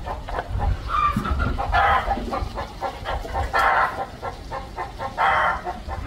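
Chickens clucking in the background: short calls about every second and a half, over a low rumble.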